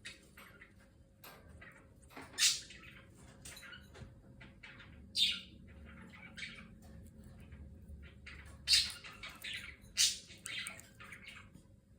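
Green-cheeked conure making short, sharp sounds while eating a yardlong bean: many faint clicks with a few louder high-pitched chirps spaced a few seconds apart.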